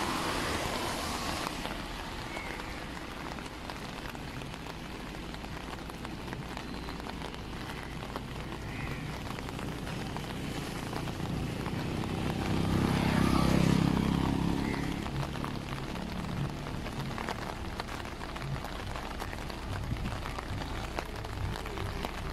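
Steady rain hiss with wind, and a louder low rumble that swells and fades a little past the middle.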